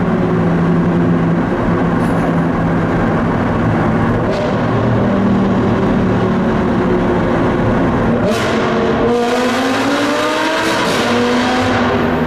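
Sports car engines heard from inside a following car in a road tunnel: a steady cruising note, then about eight seconds in a sudden burst of revs, after which the engine pitch climbs steadily as the cars accelerate toward the tunnel exit.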